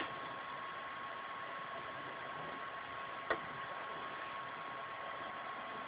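Steady background hiss with a thin, steady high tone running through it, and one small click about three seconds in.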